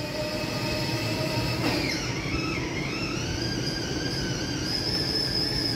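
Electric drive motor of a battery-powered kids' ride-on toy motorcycle whining as it runs; its pitch dips briefly about two seconds in, then rises and holds steady.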